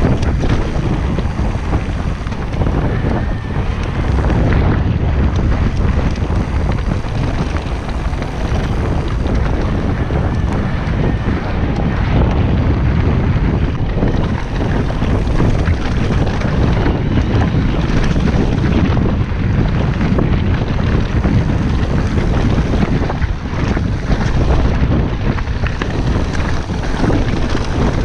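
Wind buffeting the microphone of a bike-mounted or rider-worn action camera on a mountain bike riding a gravel trail, heavy and steady. Through it come the crunch of tyres on loose stones and the bike rattling over bumps.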